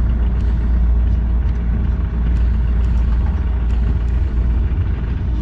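John Deere 50G compact excavator's diesel engine running steadily, heard from inside the cab, a deep even drone with a few faint clicks over it.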